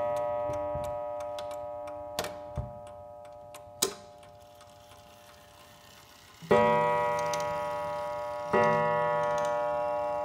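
Mantel clock striking on its coiled wire gong: a ringing stroke dying slowly away, a few light clicks in the lull, then two more strokes about two seconds apart, each ringing on.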